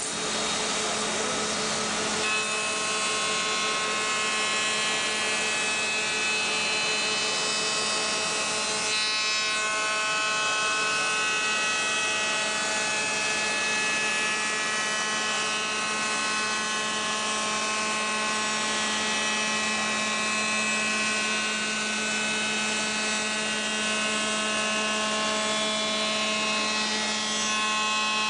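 Reichenbacher RANC 433 S CNC wood router running, a steady spindle whine of several tones over machining noise. The tones settle about two seconds in, and the sound shifts briefly about nine seconds in.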